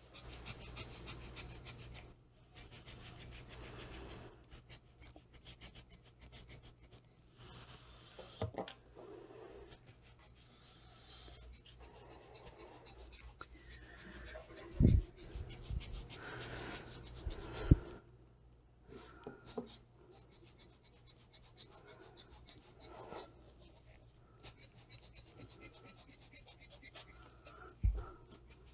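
Repeated short hissing puffs of air from a hand-squeezed air-blower bulb pushing wet alcohol ink around, each puff lasting a second or two. A few soft knocks of the tool being handled on the table, the loudest about halfway through and near the end.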